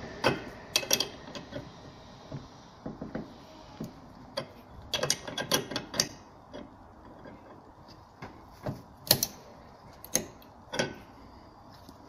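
Ratcheting ring spanner clicking in short irregular bursts as it keeps tightening the brass packing nut on a radiator valve's spindle, past its 4.5 ft-lb setting: the packing gland is being overtightened.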